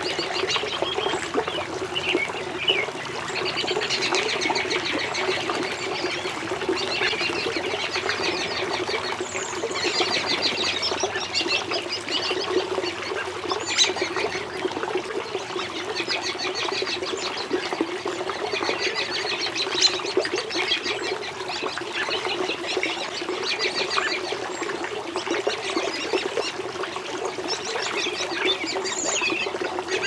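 Small pond waterfall splashing steadily, with birds chattering in many quick trilled bursts over it.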